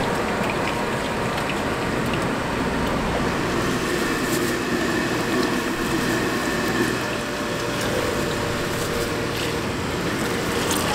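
Scallion pancakes deep-frying in a wide pan of hot oil: a steady sizzling and bubbling, with a few light clicks.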